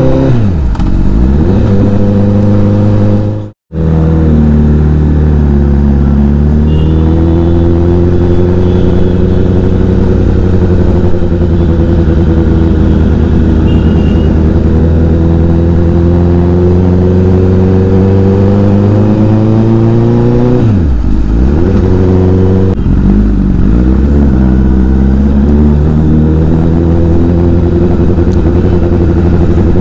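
Honda CBR Fireblade's inline-four engine running under way, its pitch rising and falling as the throttle is opened and closed. The sound drops out for a moment about three and a half seconds in, and a little past twenty seconds in the engine note falls sharply, then climbs again.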